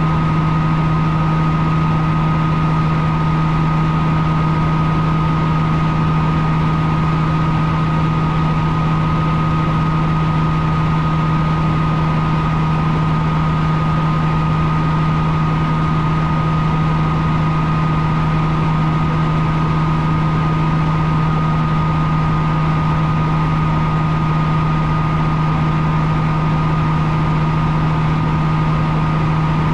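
Bell 47 helicopter's piston engine and rotor heard from inside the open bubble cockpit in steady cruising flight: a loud, even drone with a constant low hum and a fainter high tone that hold the same pitch throughout.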